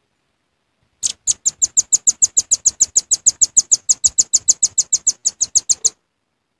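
Velvet-fronted nuthatch giving a rapid trill of sharp, high chit notes, about eight a second. It starts about a second in with a louder first note and stops abruptly after about five seconds.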